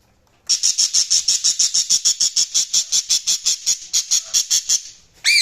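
Budgie chirping in a rapid, even string of short high chirps, about seven a second, then a single call that falls in pitch near the end.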